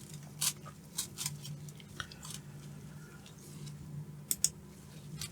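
Faint handling noises: scattered light clicks and rustles of small items or packaging being picked up, over a steady low hum.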